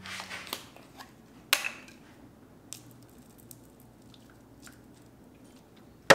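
Workshop handling noises: scattered light clicks and two sharp knocks about a second and a half in, a faint trickle of water being poured from a plastic jug into a shallow foam-lined tray, and a loud sharp knock near the end.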